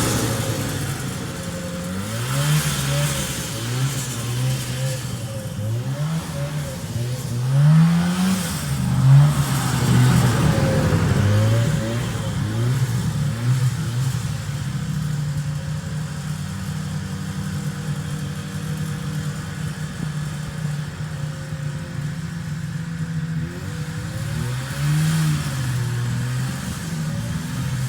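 1974 John Deere JD600 snowmobile's two-stroke engine running, revving up and down several times, then holding a steadier speed before revving again near the end.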